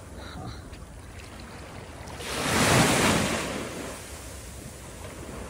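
Small sea waves breaking and washing up a shallow sandy shore, one wave swelling up about two seconds in and fading away a second or so later.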